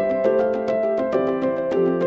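Instrumental background music: a quick run of struck melodic notes, several a second.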